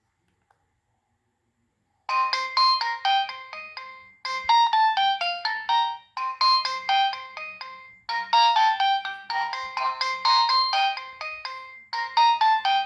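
Preloaded ringtone on a Nokia 6015i phone: after near silence, a fast, bright melody starts about two seconds in, with several notes sounding at once, repeating its short phrase every couple of seconds.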